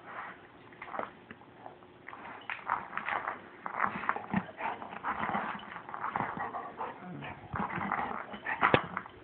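Golden retriever chewing and mouthing a rubber ball, a busy run of irregular short gnawing and clicking noises that starts about two seconds in, with one sharp click near the end.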